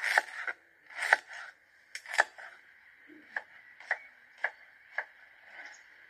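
Kitchen knife chopping a red onion on a wooden cutting board: three heavier cuts in the first couple of seconds, then lighter, even strokes about twice a second.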